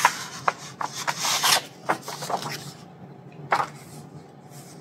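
A picture book's paper page being turned and pressed flat by hand: rustling and rubbing of paper with a few short scrapes, mostly in the first two and a half seconds and once more at about three and a half seconds.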